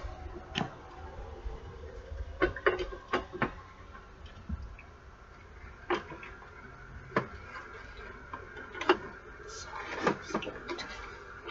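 Irregular light clicks and knocks of plastic parts being handled on a drip coffee maker, about ten in all, over a low rumble of the camera being handled and carried.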